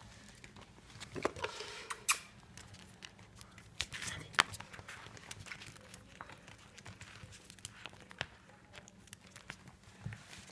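Yorkshire terrier scuffling over biscuits: scattered claw clicks and patters on a hard floor, with a short vocal sound from the dog about a second in and louder scuffles around two and four seconds.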